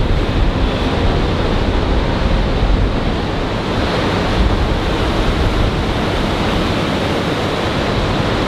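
Steady rushing noise of surf and sea wind, with wind buffeting the microphone in a low rumble.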